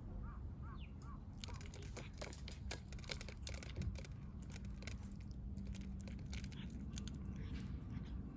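Cats eating, their food crunching as a rapid run of crisp clicks. A bird chirps several times in quick succession in the first second.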